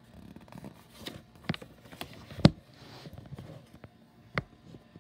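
Pages of a hardcover picture book being turned by hand: paper rustling with a few sharp taps and knocks from handling the book close to the microphone, the loudest tap about halfway through.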